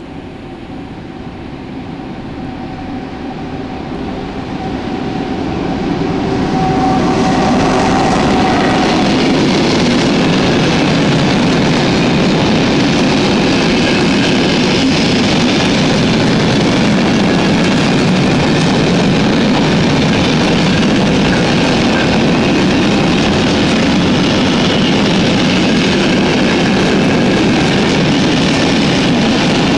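Freight train approaching and passing through at speed, a long line of hopper wagons rumbling and rattling over the rails. The noise grows for the first six or seven seconds as the train arrives, with a faint steady whine at first, then holds loud and steady as the wagons go by.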